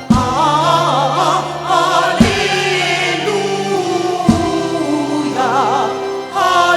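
Live gospel music: a choir and lead voices singing a slow worship chorus over sustained keyboard chords, with a low drum hit every two seconds or so.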